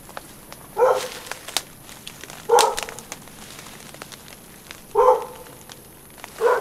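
A dog barking four times, single short barks about two seconds apart.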